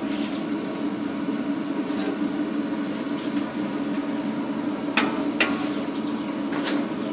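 Pakoras frying in a large iron karahi of oil over a burner: a steady hum and hiss, with a metal skimmer knocking sharply against the pan three times, twice close together about five seconds in and once more near the end.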